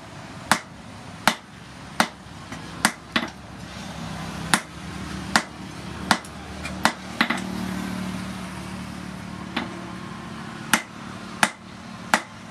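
A hand hammer strikes red-hot steel rebar on a steel block anvil, forging it: about fifteen sharp blows, mostly a little under a second apart, with a pause of a few seconds midway. A low steady hum sits underneath.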